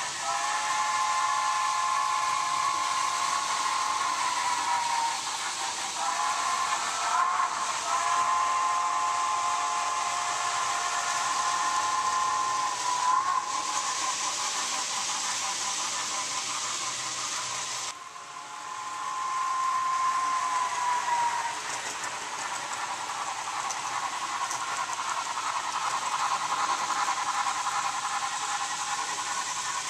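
Steam locomotive whistle blowing several long, drawn-out blasts, the pitch sagging as some blasts end, over a steady hiss of steam. The whistle fades weaker for the last several seconds, leaving mostly the hiss.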